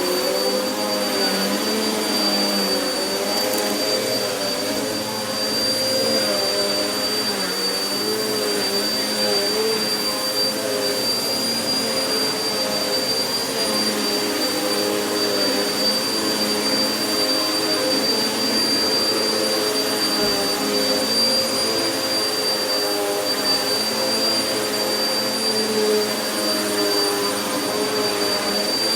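Vacuum cleaner running continuously over carpet sprinkled with carpet powder, with a steady high whine and a motor note that wavers slightly as it is worked.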